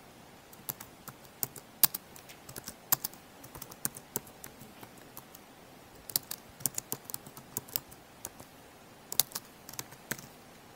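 Computer keyboard typing: irregular sharp key clicks in short runs, with a brief lull about halfway through.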